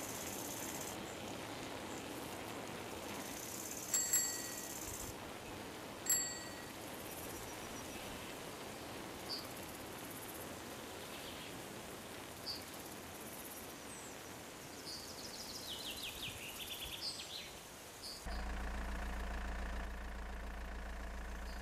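Outdoor countryside ambience: steady hiss with high insect buzzing, two short sharp bird calls, then a few small chirps and a quick falling run of notes. About eighteen seconds in it changes abruptly to a steady low mechanical hum.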